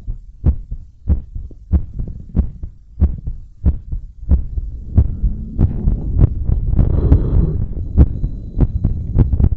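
A person's heart beating fast and regularly, about a hundred beats a minute, picked up through a homemade stethoscope: a polymer-clay cup over a headphone microphone, pressed to the sternum. A soft rushing noise swells and fades midway under the beats.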